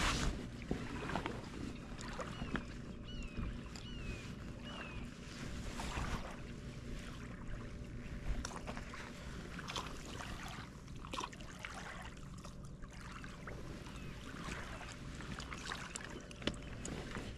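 Small waves lapping against a rocky lakeshore over a low steady rumble, with scattered clicks from handling a fishing rod and a fish. Four short, high, falling chirps come about two and a half seconds in.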